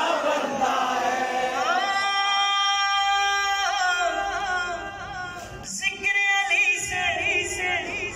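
Men's voices reciting a line of an Urdu manqabat together, then a single male voice singing it unaccompanied with long, held, wavering notes.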